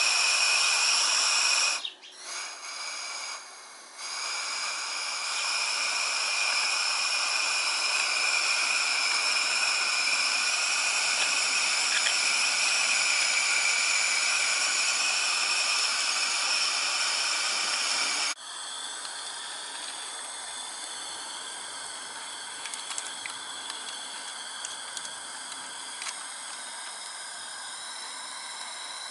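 Steady hiss with a high, even whine from a coal-fired vertical-boiler model locomotive raising steam. It cuts out briefly about two seconds in and turns quieter and thinner past the middle.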